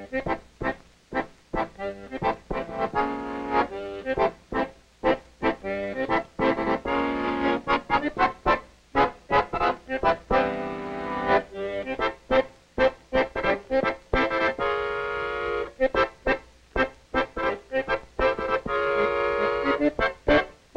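Piano accordion playing a tune of quick, short, sharply detached notes and chords, with some chords held for a second or so.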